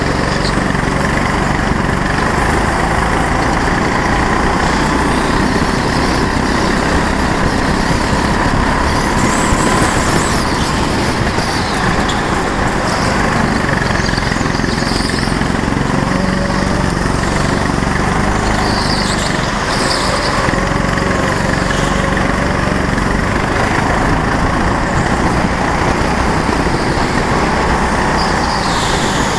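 Go-kart engine running hard as the kart laps the track, heard loud and close from a camera mounted on the kart, its note rising and falling a little with throttle.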